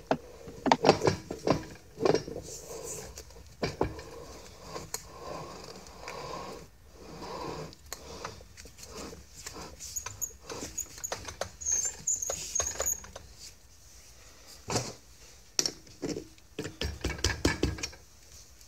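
Metal clicks, knocks and scraping of a four-jaw lathe chuck being handled and spun by hand onto the lathe's threaded spindle, with a faint high squeak partway through and a quick run of knocks near the end.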